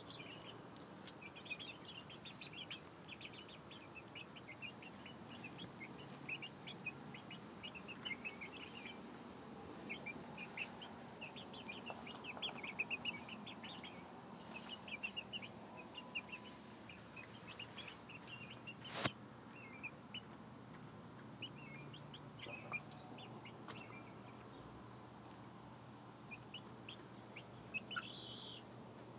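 Young pullets, five to seven weeks old, peeping and cheeping in many short high chirps, with a single sharp click about two-thirds of the way through.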